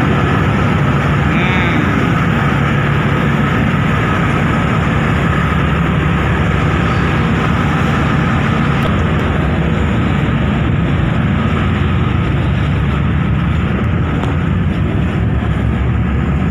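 Loud steady drone of a car ferry's engines and machinery heard on board: a constant low hum under a broad rush of noise, unchanging throughout.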